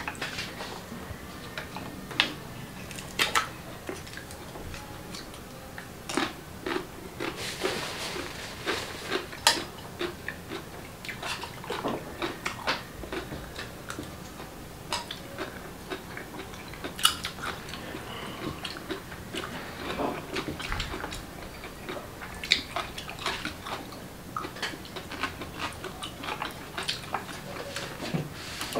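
Close-up eating of boiled clams: chewing, with frequent irregular sharp clicks of chopsticks, a spoon and clam shells against glass and ceramic bowls.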